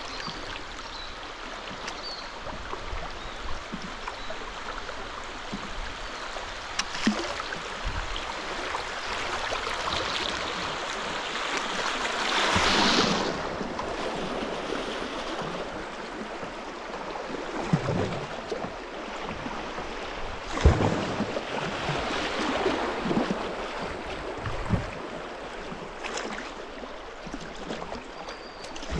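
Fast river rapids rushing and splashing around a kayak's hull, a steady wash of water noise with a louder surge about twelve seconds in. Occasional short thumps are heard now and then.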